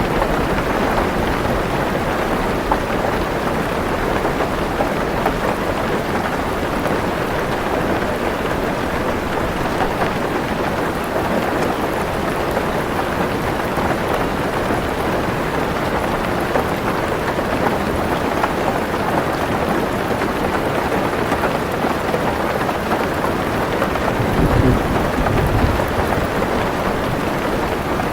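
Heavy rain drumming steadily on a car's roof and windows, heard from inside the car. A short low rumble of thunder comes near the end.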